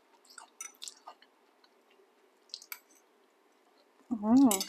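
A person chewing a soft fried potato stuffed with ham and melted cheese, with small wet mouth clicks and smacks. About four seconds in comes a short hummed vocal sound.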